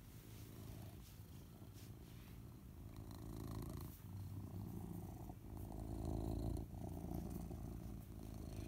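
Tuxedo cat purring close to the microphone, a steady low rumble that grows louder about three seconds in, with brief breaks every second or so.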